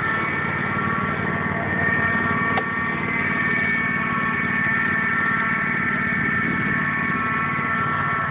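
John Deere lawn tractor engine idling steadily: a low hum with a steady high whine over it. A single sharp click about two and a half seconds in.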